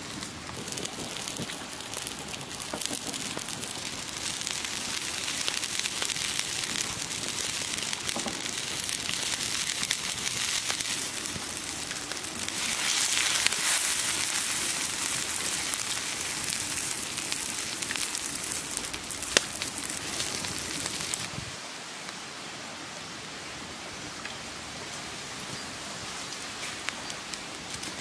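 Water boiling hard in a pan over a wood fire: a dense bubbling hiss with scattered crackles. It swells louder about halfway through and drops suddenly to a quieter hiss a few seconds before the end.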